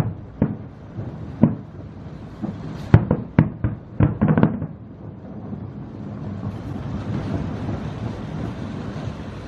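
Fireworks going off: single loud bangs, then a quick run of bangs about three to four and a half seconds in, giving way to a steady, dense rumble that swells toward the end.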